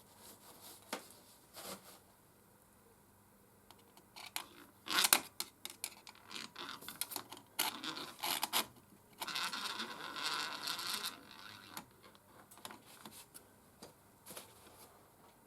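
Small parts being handled at close range: scattered clicks and light knocks, a cluster of sharp clicks about five seconds in, and a scraping rub lasting about two seconds a little past the middle.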